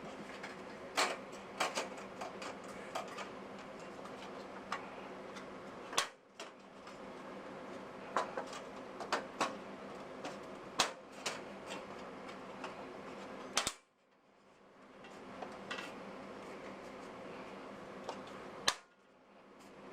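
Irregular sharp clicks and small knocks of computer parts being handled and fitted, over a steady low hum. The hum cuts out abruptly three times and builds back up.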